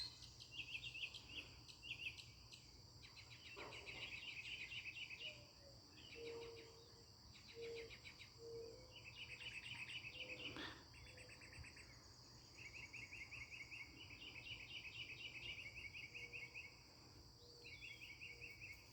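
Northern mockingbird singing: bouts of rapidly repeated chattering notes, each phrase lasting a second or two with short pauses between. A steady high insect drone runs underneath.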